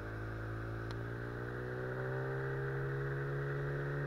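Small outboard motor running steadily, pushing an inflatable boat upriver; its pitch rises gently over the first few seconds and then holds.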